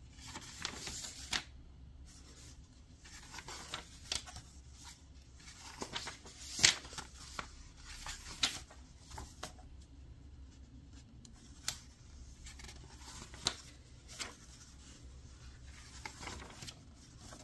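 Pages of a textbook being flipped through by hand: soft paper rustling broken by sharp flicks and snaps as individual pages turn over.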